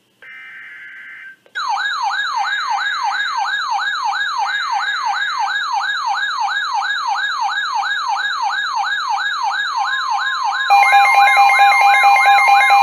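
Emergency alert tones: a brief screech of digital header data, then an electronic siren wailing in quick repeated pitch sweeps, about two and a half a second. Near the end a steady two-note attention tone joins the siren and the whole gets louder.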